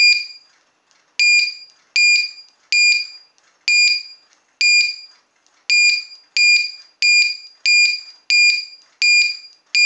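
The buzzer of a 2S–8S LiPo battery low-voltage alarm gives one short, shrill beep for each button press while its alarm threshold is stepped up 0.1 V at a time. There are about thirteen beeps, each starting sharply and fading away, spaced a little under a second apart and coming slightly faster after the first few.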